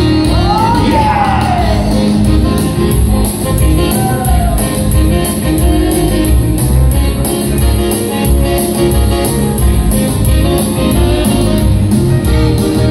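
Live band playing amplified dance music with a steady cymbal beat, with a voice calling out briefly about a second in.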